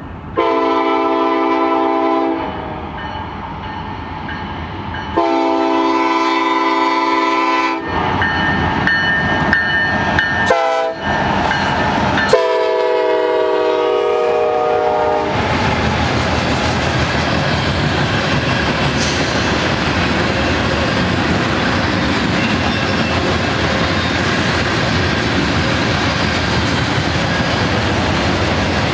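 Union Pacific SD70ACe diesel locomotive sounding its multi-note horn in several long blasts, the chord dropping in pitch as the engine goes by. Then the freight cars roll past in a steady rumble.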